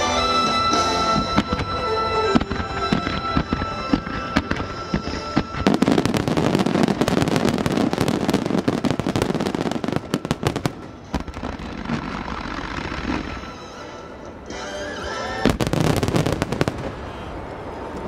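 Starmine fireworks over music: a few bangs under the music with a held note for the first several seconds, then from about six seconds in a dense barrage of crackling explosions that thins out and flares up again briefly near the end.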